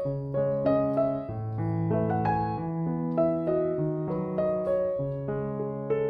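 Background piano music: a gentle, steady flow of single notes over held bass notes.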